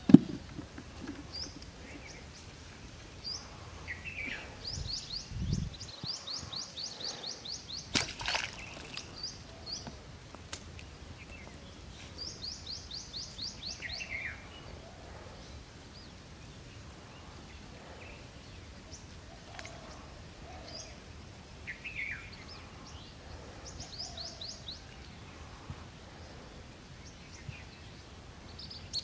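Birds calling: several bursts of rapid, high chirping notes, with lower single down-slurred calls between them, over a faint outdoor background. A sharp knock comes right at the start, and another about eight seconds in.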